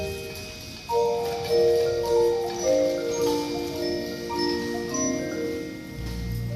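Mallet percussion in a band performance, playing a slow passage of overlapping ringing notes in the style of marimba and glockenspiel. A low rumble enters near the end.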